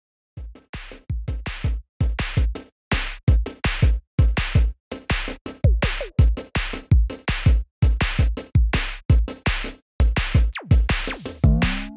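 Electronic music built on a drum-machine beat: a fast, regular run of deep kicks and sharp hits, broken by short silent gaps between phrases, with a couple of falling synth sweeps.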